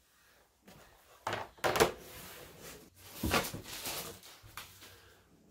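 Hard plastic CGC graded-comic slabs being handled: a few clacks and knocks as one slab is set down and the next is picked up from a stack, with shuffling and rubbing between them.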